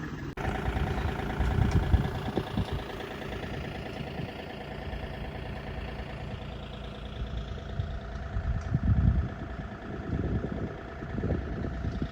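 Engine running steadily at idle, with uneven low rumbles underneath.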